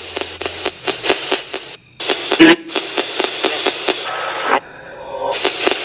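Ghost-hunting spirit box sweeping through radio stations: hissing static chopped by rapid clicks, about five or six a second, with brief snatches of broadcast sound in between.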